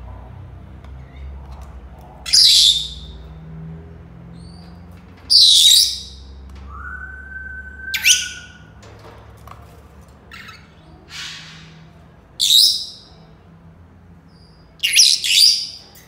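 Senegal parrots calling: five loud, shrill squawks a few seconds apart. Between the second and third, a single level whistle is held for about a second and a half.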